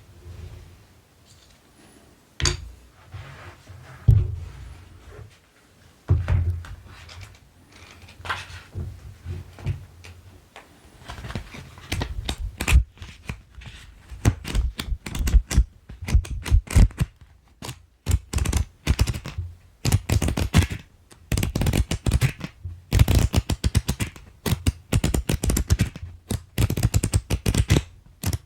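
Colored pencils tapped and clicked close to the microphone: scattered single taps with soft thumps at first, then quick runs of many rapid taps from a little under halfway through.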